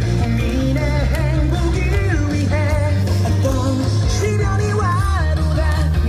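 Loud recorded song with a singer over a heavy, steady bass, played as music for a pom-pom dance routine.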